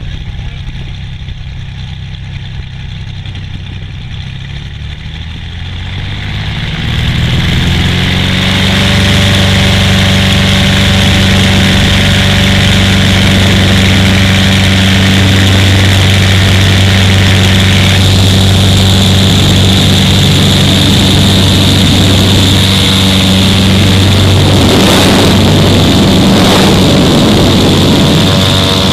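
Single-engine light aircraft's piston engine and propeller, heard from inside the cabin, throttled up to full power for the takeoff roll: the pitch and loudness climb over about two seconds some seven seconds in, then hold steady and loud. A couple of brief bursts of noise come near the end.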